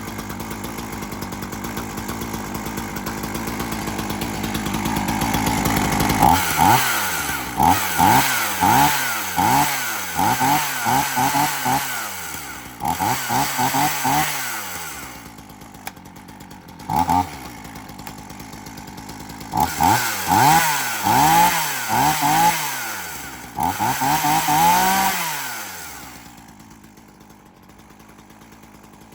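Two-stroke chainsaw engine warmed up after a cold start, its note climbing steadily for several seconds, then revved in quick throttle blips about one a second, each rising and falling in pitch. A short pause with one blip comes midway, then another run of revs, and it drops back and fades near the end.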